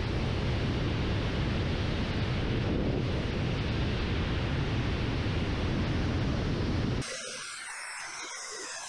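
Steady, loud rushing roar of a Su-25 ground-attack jet's twin turbojets and the airflow over a camera on the airframe in flight. About seven seconds in it cuts abruptly to quieter, hissier noise heard from inside the cockpit.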